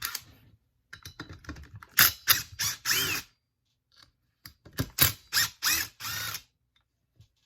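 Spark plug being unscrewed from a small two-stroke blower engine with a wrench: two bouts of ratcheting and scraping, each with a squeak from the turning plug.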